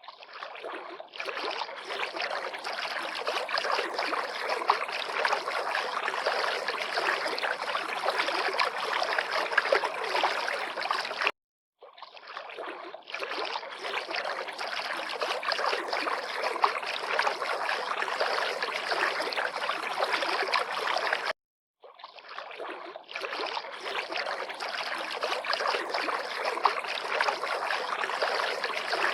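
River water lapping and trickling in a steady splashy wash. It breaks off abruptly twice, for a moment each time, and fades back in, as a looped recording does.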